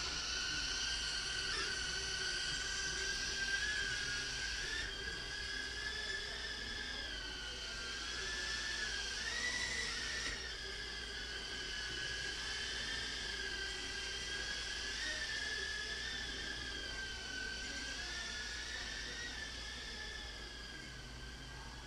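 Blade Inductrix FPV mini quadcopter in flight: the high whine of its small motors and ducted propellers, wavering up and down in pitch as the throttle is worked. It is a little louder in the first half.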